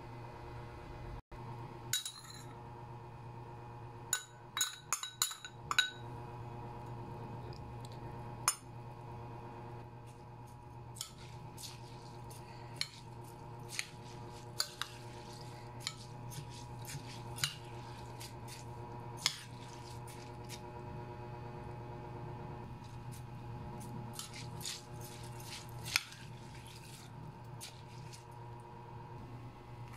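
Metal spoon stirring rice in a glass bowl, clinking and scraping against the glass in scattered taps, with a quick run of clinks about four to six seconds in. A steady low hum runs underneath.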